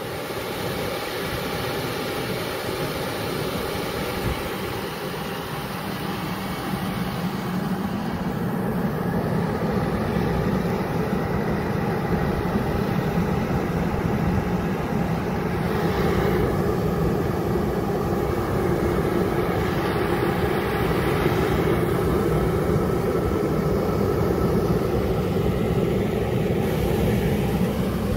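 Allegro 9538-25 explosion-proof confined space blower running steadily: a constant motor hum with the rush of its fan. It grows louder over the first several seconds, then holds level.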